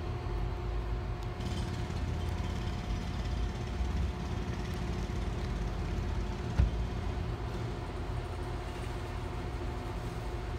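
Steady background rumble of traffic and machinery with a constant low hum, like an idling engine; one brief thump about six and a half seconds in.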